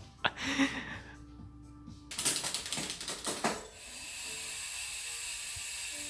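Rapid ratchet-like mechanical clicking, a few sharp clicks at first and then a dense run of clicks about two to three and a half seconds in. A steady hiss follows.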